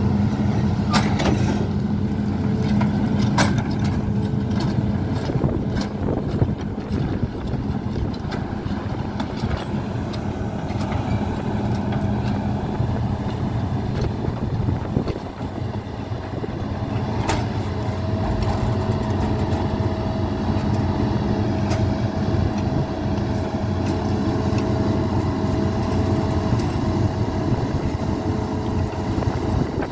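An engine running steadily at an even speed, with a few sharp clicks or knocks in the first several seconds and another about seventeen seconds in.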